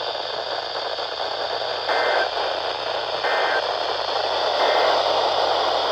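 Three short two-tone EAS data bursts, the End of Message (NNNN) code that closes a NOAA Weather Radio required weekly test, each about half a second long and spaced a little over a second apart. They sound over a steady hiss of radio static.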